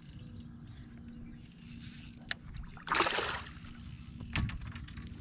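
Water sloshing against a fishing boat's hull over a steady low rumble, with a louder noisy splash about three seconds in.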